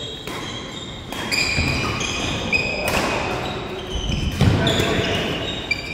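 Badminton doubles rally: rackets striking the shuttlecock in sharp cracks about once a second, with court shoes squeaking and thudding on a wooden sports-hall floor. The hall echoes each hit.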